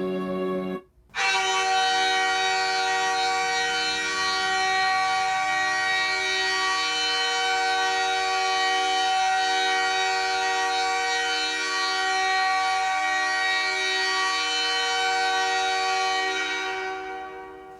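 NHL arena goal horn blowing one long, steady chord of several notes, starting about a second in and fading out near the end.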